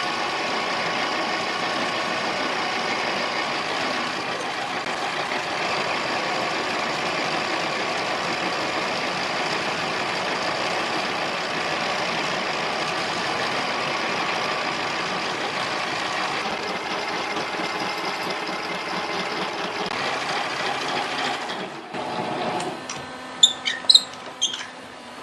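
Harbor Freight mini lathe running steadily with a whine while turning an aluminium bushing down to size. It shuts off about 22 seconds in, followed by a few sharp clicks.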